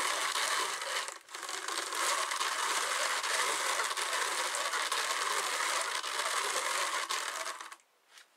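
Hand-cranked drum carder turning, its wire-toothed drums combing wool-blend fibre into a batt with a steady hiss. It breaks off briefly about a second in and stops near the end.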